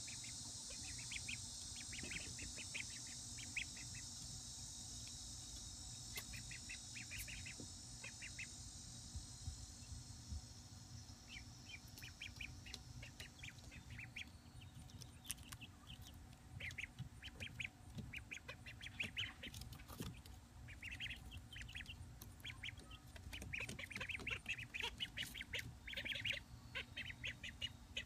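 Young ducklings and chicks peeping in runs of quick, high calls, growing busier in the second half. A steady high hiss sits under the calls at first and fades out about halfway through.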